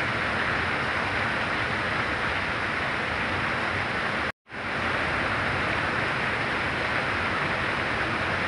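Very heavy rain falling as a steady hiss. About four seconds in it cuts out to silence for a moment and quickly fades back in, the mark of a splice in the recording.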